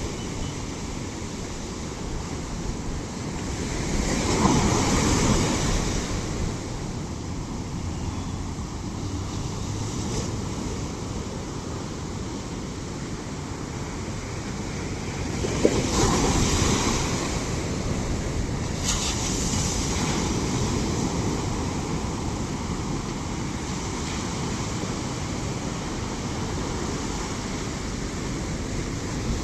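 Ocean waves breaking on the shore, a steady rushing wash with two bigger waves crashing, about four seconds in and again about sixteen seconds in.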